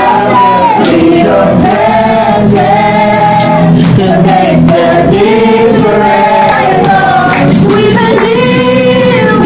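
A group of men and women singing a song together along with a karaoke backing track.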